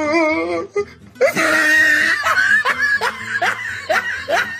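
Hearty laughter: a wavering held voice at first, then about a second in a loud burst of laughing that breaks into a run of quick rising "ha"s, about three a second.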